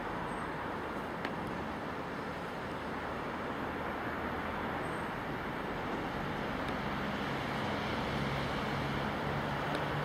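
Class 66 diesel locomotive (EMD two-stroke V12) approaching at the head of a container freight train. Its low engine note grows louder through the second half over a steady rushing noise.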